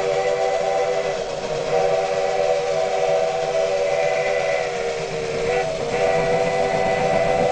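Steam locomotive chime whistle blowing long blasts, several notes sounding together, with brief breaks about a second in and near six seconds, over the low rumble of the running train.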